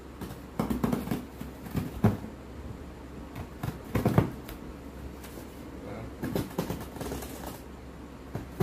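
Cardboard shipping box being handled and worked at by hand: irregular rustling, scraping and light knocks, loudest about a second in, two seconds in and four seconds in.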